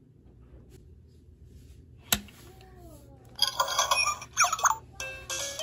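A VTech toy car's electronic sound effects playing from its small speaker: a sharp click about two seconds in, then bright beeping and chirping with quick rising whistles in the last two seconds.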